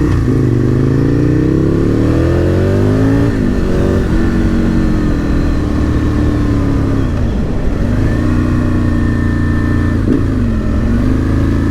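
Aprilia RSV Mille R's 998 cc V-twin engine, breathing through an Akrapovic exhaust, heard while the bike is ridden: it revs up, rising in pitch for about three seconds, then drops back and runs at a steadier note with two brief dips near the middle and near the end.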